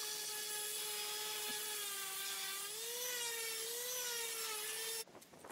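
Random orbital sander running on a softwood pallet board, a steady motor whine whose pitch wavers up and down in the middle, stopping abruptly near the end.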